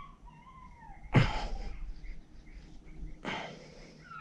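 Two short, sharp breaths of effort about two seconds apart, from a person straining to work a stuck, rusty brake caliper slide pin out of its bore.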